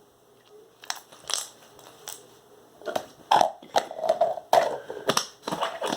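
Slime being squeezed and worked by hand, giving irregular wet clicks and pops that come thicker in the second half.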